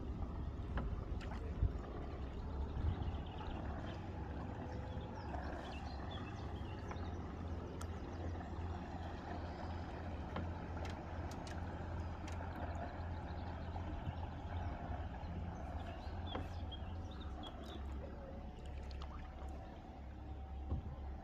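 Rowing boat under way on calm water: a steady low rumble with water lapping and a few knocks about two seconds in, plus a few faint high chirps.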